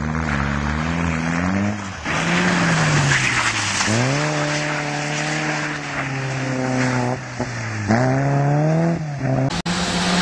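Small car engines revving hard as the cars are thrown into slides on wet, loose ground. The engine pitch climbs sharply, holds, then drops and climbs again as the throttle is worked, over a steady hiss of tyres and gravel. The sound changes abruptly at about 2 s and again near the end as one car's clip gives way to another's.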